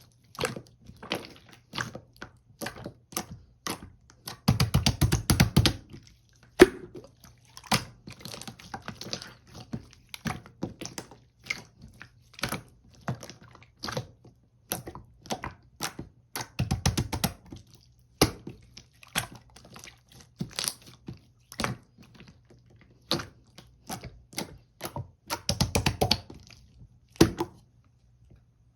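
Pearl marbling slime being pressed, stretched and folded by hand, giving a steady string of sticky clicks and pops, with three denser runs of rapid crackling pops as it is worked harder.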